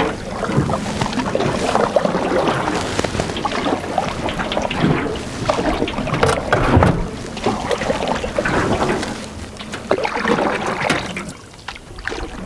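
Water lapping and sloshing against the hull of an aluminum canoe on choppy water, coming in uneven swells every second or two.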